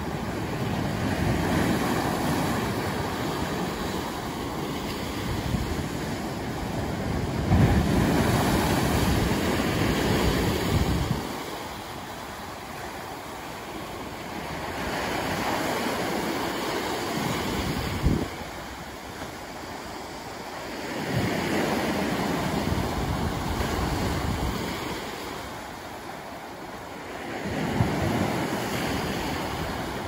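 Sea waves breaking over rocks and washing up a sandy shore. The surf rises and falls in surges every several seconds, with a few sharp splashes as waves hit the rocks.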